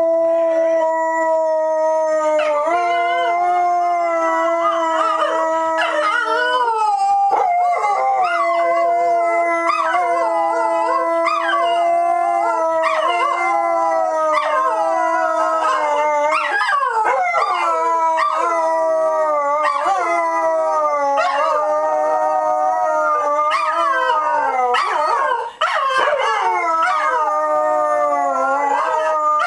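Dogs howling together: long wavering howls that slide up and down, over a steady held note that runs almost throughout.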